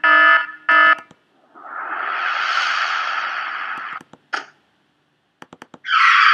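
Stock sound effects being previewed one after another. First, an electronic alarm beeps in short pulses at about one and a half beeps a second. It stops after a second and gives way to a long burst of rushing noise that swells and fades, then a few sharp clicks and another short noise burst near the end.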